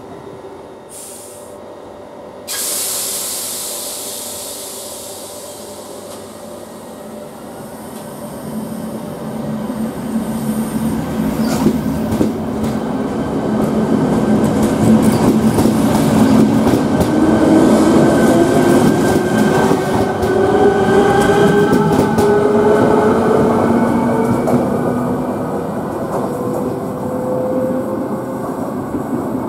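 A ČD class 471 CityElefant double-deck electric unit pulling out of the station. A sudden hiss of air comes about two and a half seconds in. The traction motors then build up and whine, rising in pitch as it speeds up, with wheels clicking over rail joints.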